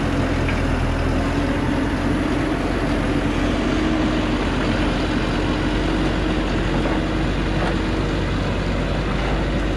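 Diesel engine of a heavily loaded log truck running steadily at low revs under load as the truck crawls up a steep muddy slope.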